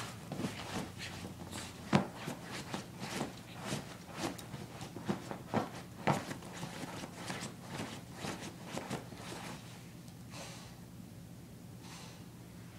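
Corgi puppy digging at a fabric dog bed with her front paws: quick, irregular scrapes and scratches, several a second, that die away about ten seconds in.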